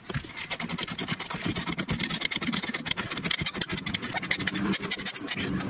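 Socket ratchet clicking rapidly and steadily as a nut is run down on the truck's suspension.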